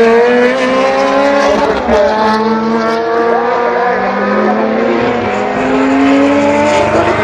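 Lamborghini supercar accelerating hard. The engine pitch climbs steadily in each gear and drops at each upshift, about every two seconds.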